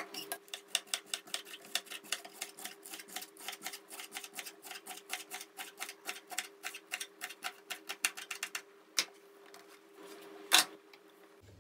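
Knife chopping leek on a plastic cutting board in quick, even strokes, about six a second. The chopping stops a little before the end, followed by a single knock and then a louder knock as the board is tipped to slide the chopped leek into a basket.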